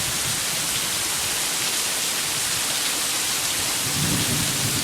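Heavy rain pouring down steadily, with a low rumble of thunder starting near the end.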